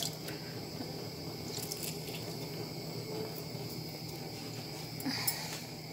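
Strawberries and sugar bubbling in a large steel pot as lemon juice is squeezed into it from a hand-held metal lemon press, with liquid dripping and a few faint clicks.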